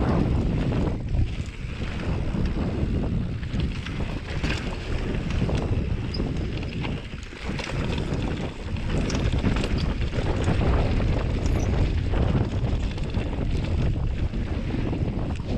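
Wind buffeting the microphone of a mountain bike rider's camera, with tyre rumble on a dirt trail and scattered rattles and clicks from the bike.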